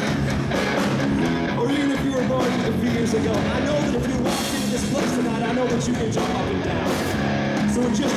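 Live rock band playing loud electric guitars and a drum kit under a lead vocal, with cymbal crashes about halfway through and again near the end.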